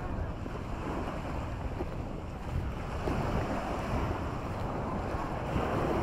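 Small Mediterranean waves washing up and falling back on a sandy shore, a steady rushing that swells gently, with wind buffeting the microphone.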